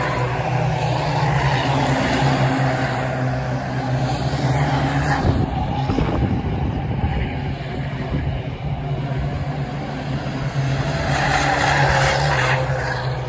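A pack of Mini-based ministox race cars running hard around the oval, many engines revving together. The sound falls away in the middle as the pack goes down the far side and swells again near the end as cars come back close.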